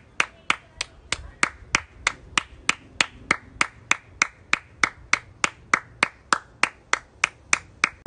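One person clapping their hands at a steady, even pace of about three claps a second.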